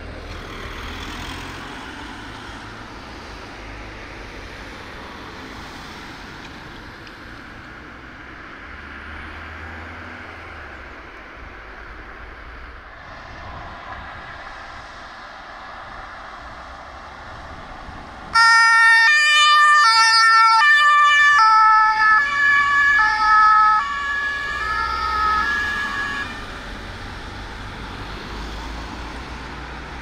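A fire brigade vehicle's two-tone Martinhorn starts suddenly about two-thirds in, over steady vehicle noise, alternating between two pitches. It then drops slightly in pitch and fades as the vehicle passes and moves away.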